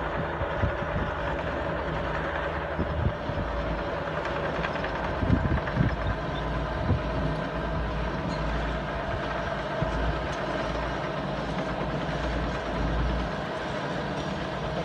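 John Deere 650J crawler dozer's diesel engine running steadily as it drags a big load of logs down a skid trail, with a few short clanks along the way.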